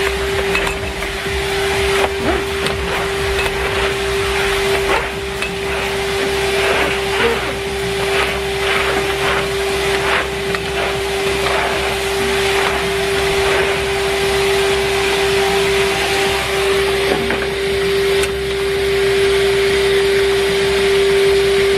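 Numatic Henry Wash wet-and-dry vacuum cleaner running with a steady tone over its motor noise, with scattered clicks and knocks as it is worked.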